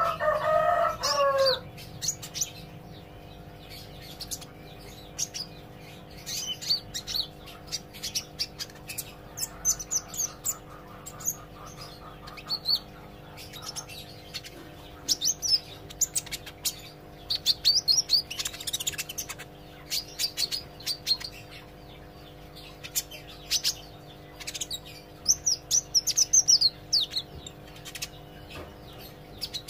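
Kolibri ijo, a green sunbird, learning to sing: repeated bursts of high, thin chirps and quick twitters, with a louder, lower warbling call in the first second and a half.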